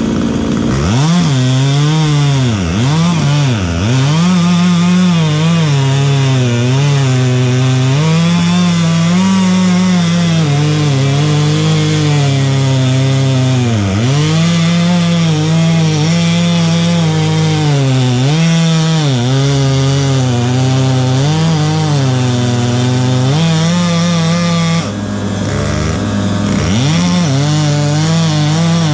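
Chainsaw cutting wood at high revs, its engine pitch sagging and recovering again and again as the chain loads up in the cut. It eases off briefly near the end, then picks up again.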